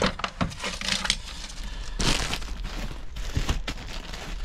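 Loose plastic trim pieces and small hardware clattering as a hand rummages through a plastic bucket, in irregular knocks and clicks with a louder rustling shuffle about two seconds in.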